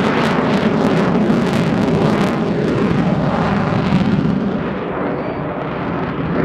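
Jet noise of an Avro Vulcan bomber's four Rolls-Royce Olympus turbojets in flight: a loud, crackling rumble. It turns duller and dips slightly about four seconds in, then swells again near the end.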